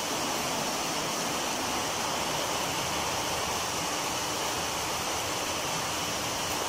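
Rice-flour batter pancake sizzling steadily in a hot iron pan, an even hiss with no breaks.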